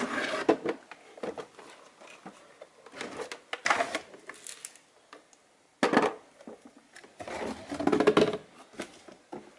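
Handling noise as the plastic-bodied pressure washer is worked free of its tight cardboard box and set down: irregular scraping, rustling and knocks, with a sharp knock about six seconds in and a cluster of scrapes near eight seconds.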